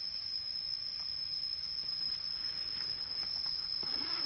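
Insects droning: one steady, unbroken high-pitched tone with a fainter, higher hiss above it, and a few faint ticks.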